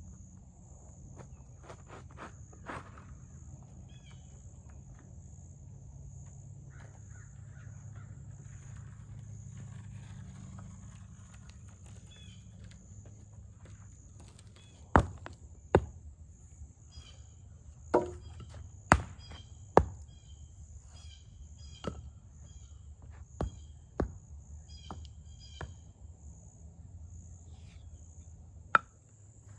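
Outdoor ambience with a steady high-pitched insect drone. About halfway through, a dozen or so sharp knocks begin, spaced irregularly a second or two apart.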